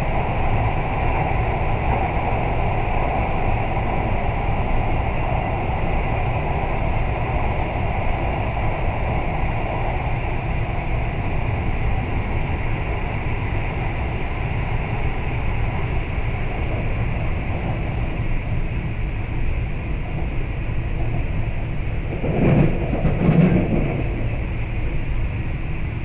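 Steady running noise inside a carriage of a JR East E4 series Max double-decker Shinkansen, with a brief louder rumble about 22 seconds in.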